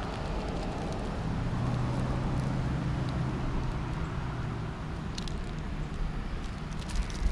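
Steady outdoor background noise with a low hum through the first half, and a few light clicks of handling later on.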